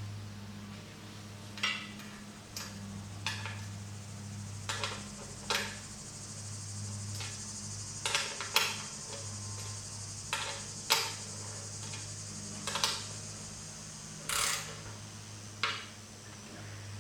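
Small metal clicks and clinks of bolts, nuts and a hand tool being worked while bolting the burner onto a forge: irregular sharp taps, one to three a second, over a steady low hum.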